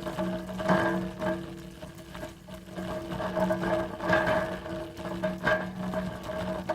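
Metal hand truck being wheeled along, its frame clattering in uneven surges over a steady humming tone from the rolling wheels.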